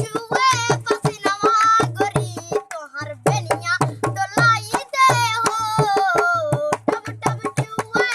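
Music: a song with a gliding, ornamented singing voice over a quick, steady tabla and drum beat.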